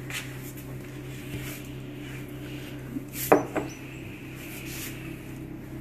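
A sharp knock on the kitchen worktable about three seconds in, with a lighter knock just after, over a steady low hum.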